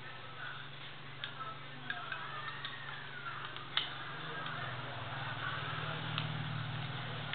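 Scattered small clicks and taps from parts of a CYMA P.817 electric airsoft pistol being handled during disassembly, the loudest about four seconds in, over a steady low hum.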